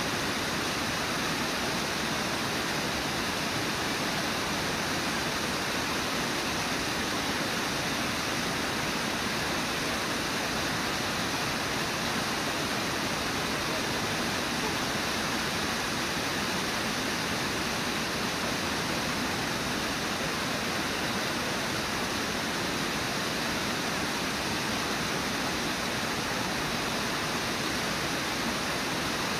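Steady rush of the water pouring over Brooks Falls and through the rapids below it, an even roar that does not change.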